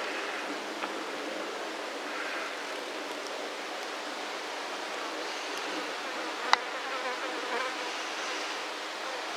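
Forest field recording: a steady hiss with an insect-like buzz and faint indistinct sounds in it, and one sharp click about six and a half seconds in.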